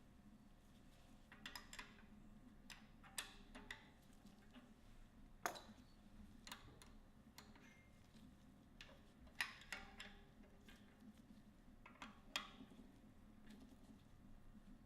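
Scattered light clicks and taps of a blind bearing puller being fitted into a bicycle rear hub shell to pull out the hub bearings, with a sharper tap about five and a half seconds in and others near nine and a half and twelve seconds.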